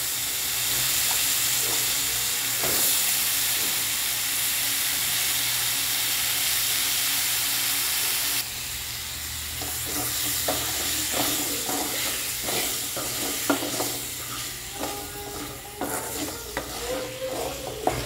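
Cubed potatoes and carrots sizzling in hot oil in a metal kadai as they are stirred with a spatula. The sizzling drops abruptly about eight seconds in, after which the scrapes and knocks of the spatula against the pan stand out.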